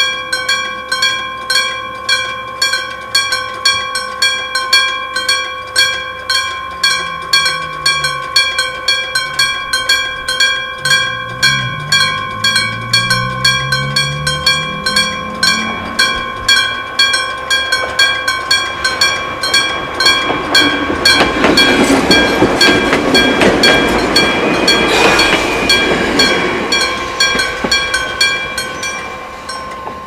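Electric level-crossing bell, an electrically struck gong, ringing with a steady run of strikes and stopping near the end. About twenty seconds in, a Matsumoto Electric Railway 3000-series train runs over the crossing, loud for several seconds.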